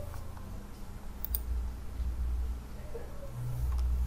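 A few sparse, light clicks from a computer keyboard and mouse, with a low, steady hum underneath.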